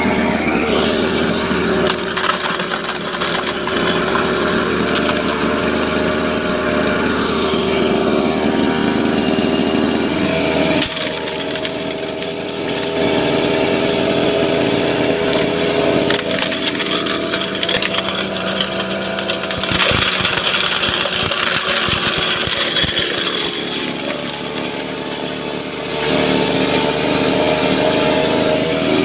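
Small petrol grass-cutter engine driving a homemade goat-manure grinder, running continuously; its speed and loudness dip twice, about a third of the way in and again near the end.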